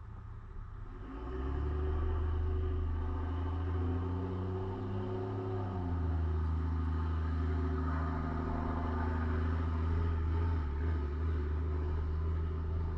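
A motor engine running steadily, with a low hum that comes in about a second in. Its pitch rises a little, then drops about six seconds in.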